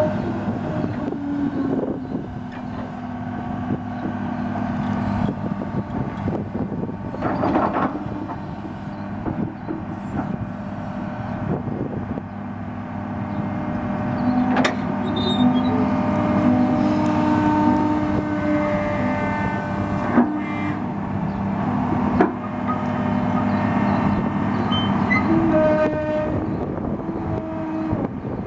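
Komatsu PC200-6 excavator's six-cylinder diesel engine running steadily, with whining tones that come and go and several sharp clanks.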